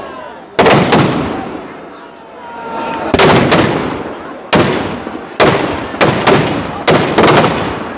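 Firecrackers packed in a burning Dussehra effigy going off in loud bangs, about eight of them at uneven spacing, each trailing off into crackle and echo.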